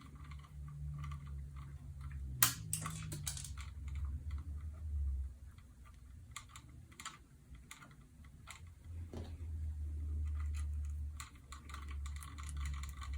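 Hands handling wires and small plastic wire connectors while joining the black wires: scattered light clicks and rustles, over a low hum.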